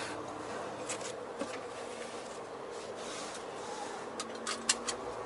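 Steady hum of a Volvo VNL 860 truck running in low-speed motion, heard inside the cab. About four seconds in, a quick run of sharp clicks and taps.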